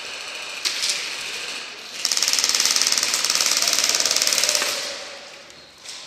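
Airsoft gun firing one long full-auto burst of about two and a half seconds, starting about two seconds in, a fast even rattle. Before it come quieter clattering and a couple of sharp clicks about a second in.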